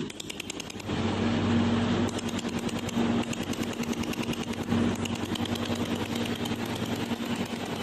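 Pulsed YAG laser welder firing, a rapid even train of sharp snapping clicks, one per laser pulse. About a second in, a steady low machine hum joins it.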